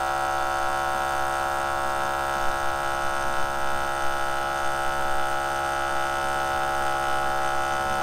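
Outin Nano portable espresso machine's electric pump humming steadily in one unchanging pitch as it pushes heated water through the grounds, extracting an espresso shot.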